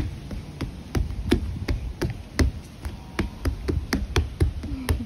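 Small shoes stepping and stamping on wooden boardwalk planks: quick, irregular knocks, several a second.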